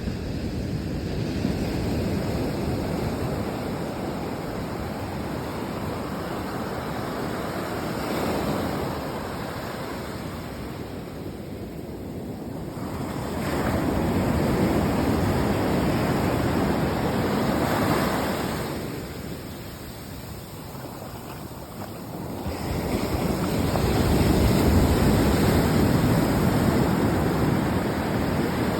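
Sea waves washing in and drawing back, the noise swelling and easing in slow surges of several seconds, loudest about halfway through and again near the end.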